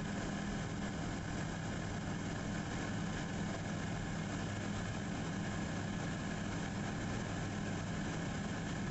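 The Pelican 500BR's Rotax 912S four-cylinder engine and propeller running steadily in flight, heard from inside the cabin as an even drone with a hiss of rushing air.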